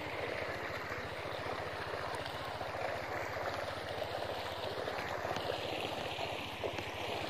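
A small engine chugging steadily with a fast, even beat, together with a rushing, water-like noise.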